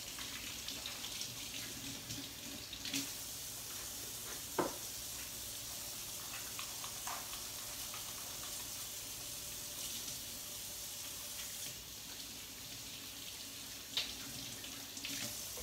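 Kitchen faucet running steadily into a stainless steel sink while things are rinsed under it, with a few light knocks. The water stops near the end.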